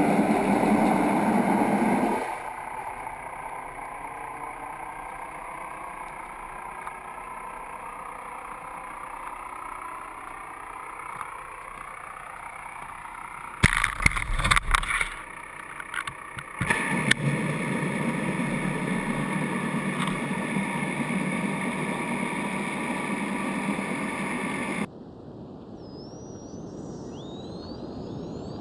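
Boat engine running with wind and water noise, in a few abruptly cut sections, with a cluster of sharp knocks about halfway through. It cuts to a quieter background near the end, with a few high rising chirps.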